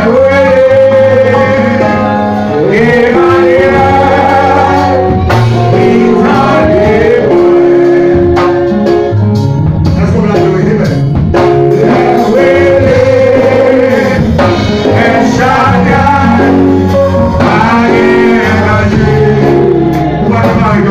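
A man singing a gospel song through a microphone and PA over a live band, with bass guitar notes underneath and drum strikes keeping the beat.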